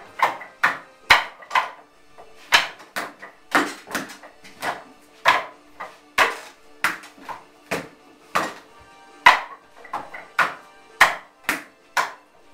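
Wing Chun wooden dummy (mook jong) being struck: hands and forearms knocking against its wooden arms and trunk, a fast irregular run of sharp wooden knocks, two to three a second, each with a short ring.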